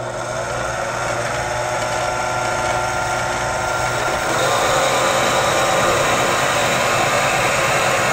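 Mini lathe starting up and running steadily, its motor and gearing giving a steady whine. About four seconds in the sound grows a little louder and rougher as the turning tool feeds along the rod, cutting down its outside diameter.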